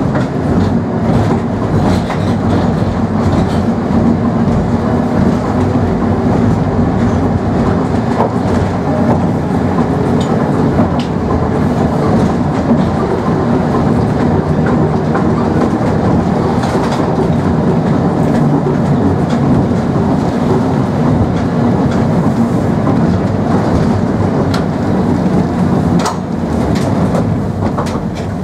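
Old four-wheel streetcar running along the street, heard from inside the car: a steady rumble of wheels on rails and rattling of the body, with scattered sharp clicks. It grows quieter over the last couple of seconds.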